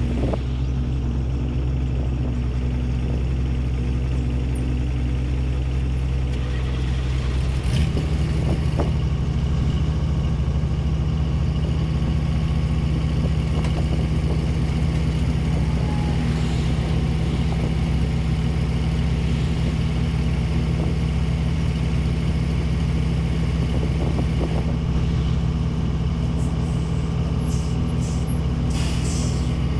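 Grain truck engine running steadily, its note changing about eight seconds in, with a few short clicks near the end.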